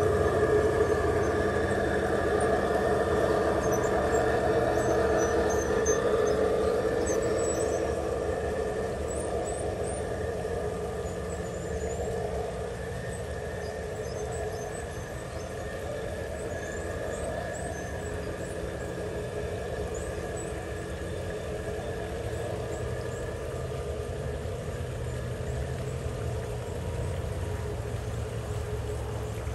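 Garden-railway model train passing: a Southern Pacific-painted diesel locomotive hauling double-stack container cars along the track with a steady mechanical hum and rolling rumble. It is loudest in the first several seconds as the locomotive goes by, then steadier and quieter as the cars roll past.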